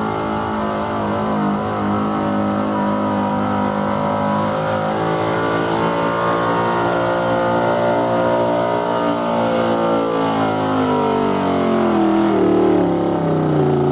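Chevrolet square-body pickup's engine running hard under load as it pulls a weight-transfer sled down a dirt track. Its pitch climbs slowly through the middle of the pull, then drops over the last few seconds.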